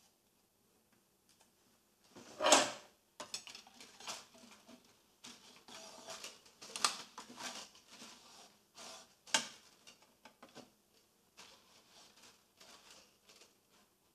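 Hands handling plastic SMD component reels and the metal rod that holds them on a pick-and-place machine's feeder rack: scattered knocks, clicks and rustles, the loudest a knock about two and a half seconds in.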